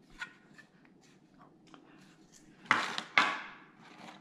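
Unboxing handling noise from a cardboard box and its foam insert: light taps and rustles, with two louder scrapes about half a second apart a little past halfway.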